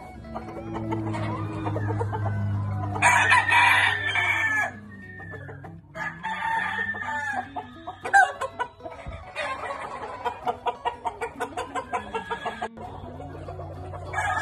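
Gamecock roosters crowing, the loudest crow about three seconds in and another a few seconds later.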